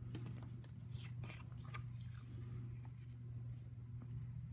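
Faint rustling and light ticks of card stock pieces being handled and slid across a craft mat, over a steady low hum.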